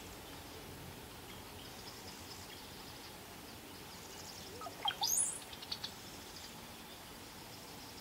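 Brown-headed cowbird singing once, about halfway through: a short run of low gurgling notes that sweeps steeply up into a thin, very high whistle. Faint bird calls go on in the background.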